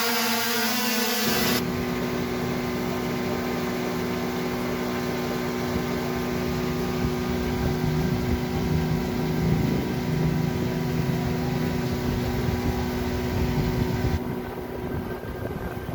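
MJX B20 quadcopter drone's brushless motors and propellers running with a steady hum while hovering. The sound shifts abruptly about a second and a half in, and near the end it thins out as gusty wind noise buffets the microphone.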